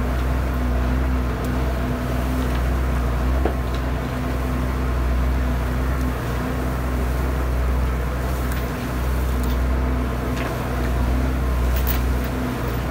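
Tractor-driven Cloverdale 500 T vertical feed mixer running steadily under load, its auger turning and cutting a wet baleage bale of first-cut alfalfa grass. The tractor engine, at about 1200 RPM, gives a constant low drone, with a few faint clicks.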